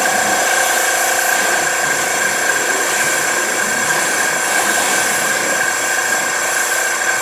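Eco Rinse machine's electric pump running with a steady whine while its hose wand sprays water onto the front of a car in a continuous hiss.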